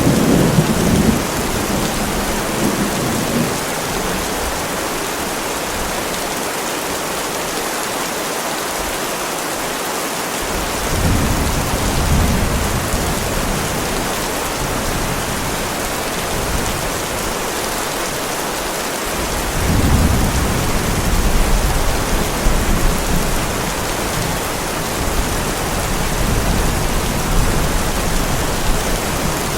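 Heavy rain falling steadily, with low thunder rumbles three times: at the start, about eleven seconds in, and a longer one about twenty seconds in.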